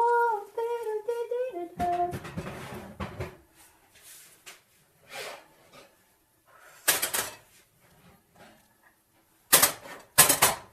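Metal bakeware clattering in a kitchen: a muffin tin and pans knocking and being set down on an electric coil stovetop, with sharp clanks about seven seconds in and twice near the end. A brief wavering pitched sound opens it.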